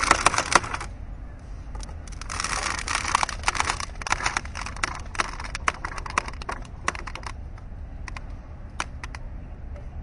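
Mooring rope creaking under load: a dense run of rapid creaks at the start and again about two to three and a half seconds in, then sparser single creaks, over a steady low rumble.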